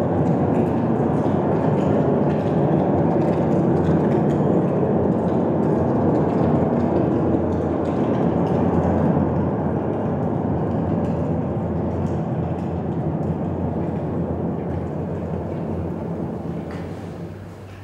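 Steady, loud machinery-like rumble with a low hum beneath it, fading away over the last few seconds.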